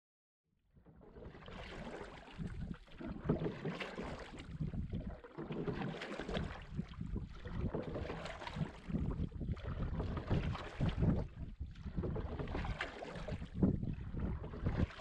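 Wind gusting over the microphone outdoors on the water, a rough, uneven rushing that starts about a second in and swells and eases every second or two.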